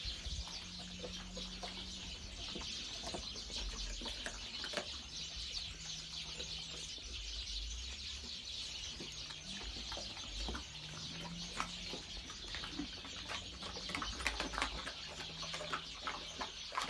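Many small birds chirping continuously, with irregular clicks and taps from dogs eating out of a metal bowl.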